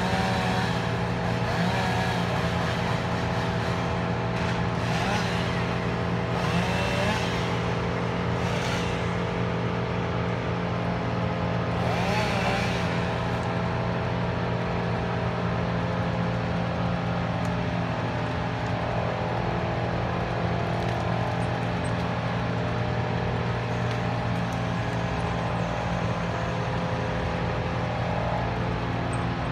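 Mobile crane's diesel engine running steadily with an even drone, with a few brief higher, wavering sounds over it in the first half.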